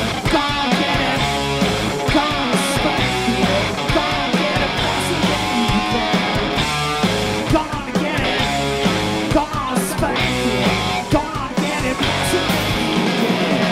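Live rock band playing, with electric guitars over a drum kit.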